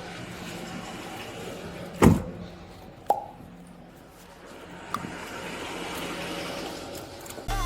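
A steady low hum, broken by a heavy thump about two seconds in and a sharp click about a second later.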